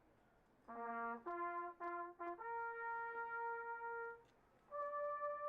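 A lone brass instrument plays a slow bugle-style call. After a short pause it gives a short low note and a quick run of short notes, then a long held note, and after a brief gap a higher held note.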